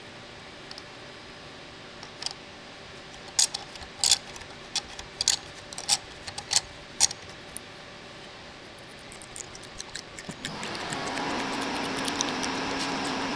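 Sharp metallic clinks as a steel M12 tap is handled and set into a threaded hole in a machined metal part, several in a row over a few seconds. About ten seconds in, a steady mechanical hum with a faint whine starts.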